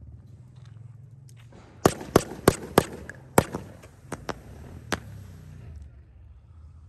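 Consumer firework cake, Supreme Fireworks' 24-shot Twilight's Last Gleaming, firing a quick run of about nine sharp pops and reports between two and five seconds in, after a lull. It is a quieter effect cake.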